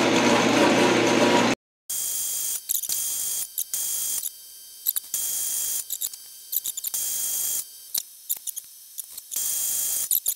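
Craftsman metal lathe running steadily for about a second and a half, then cut off abruptly. After that come small sharp clicks and handling noises of a caliper being set against the turned part, over a high hiss that comes and goes.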